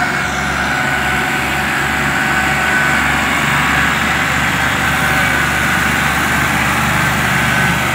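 Diesel engines of a Fiat 640 and a Ford 3610 tractor running hard and steady together, the Fiat pulling the Ford and its loaded sugarcane trolley on a tow chain.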